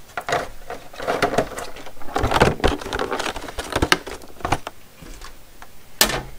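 Hands handling a clear plastic packaging tray, with irregular crinkling and clicking and light knocks against the cardboard box. A sharper click comes near the end.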